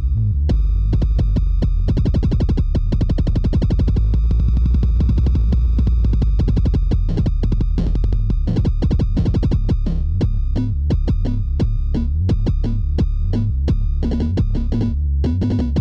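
Mutable Instruments Anushri analog synthesizer playing a fast sequenced pattern of rapid repeated notes over a heavy bass, with its built-in drum machine.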